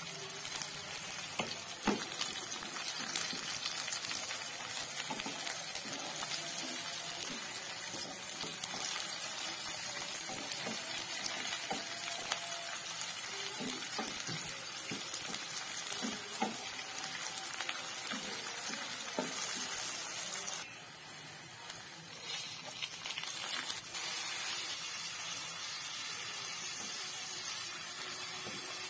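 Sliced shallots and red chilies sizzling in hot oil in a frying pan, stirred with a wooden spatula that knocks and scrapes against the pan now and then. About two-thirds of the way through the sizzle drops, then picks up again, and by the end salted squid rings are frying with them.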